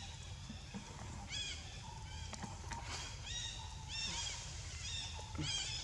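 A series of short, high-pitched animal calls, each rising and then falling, coming every half second or so and more often in the second half.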